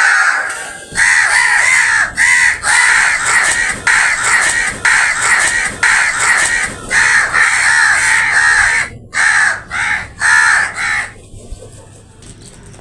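Crows cawing harshly, one loud call after another in quick succession, stopping about eleven seconds in.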